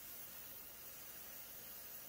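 Faint steady hiss, close to silence, with no distinct events.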